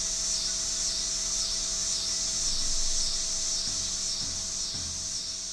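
A high rasping hiss that swells and fades about twice a second, over faint steady low tones; soft low thumps come in near the end.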